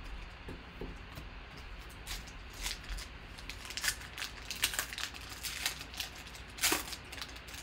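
Foil wrapper of a Panini Select football card pack being torn open and crinkled by hand: a run of short crackles starting about two seconds in, the loudest near the end.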